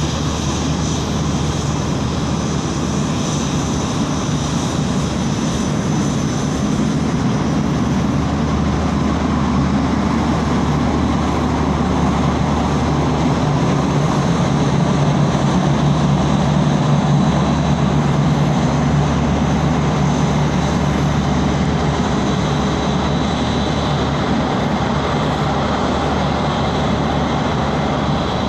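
Steady jet airliner noise at an airport apron: a continuous whine over a low rumble, swelling a little about halfway through.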